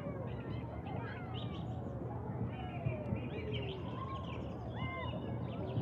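Park ambience: small birds chirping and twittering, with a steady low hum underneath.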